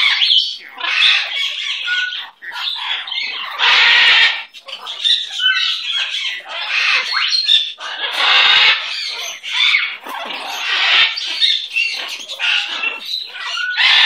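Blue-fronted Amazon parrot squawking, loud harsh calls every four to five seconds with softer chatter and short whistles in between.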